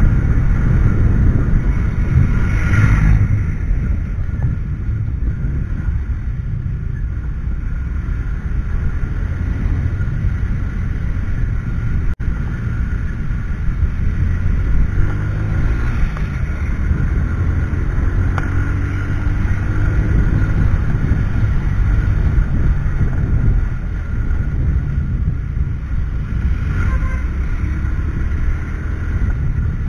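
Steady low rumble of a motorcycle ride recorded on a helmet-mounted camera: wind on the microphone over the running engine and road noise, with a brief louder swell about three seconds in.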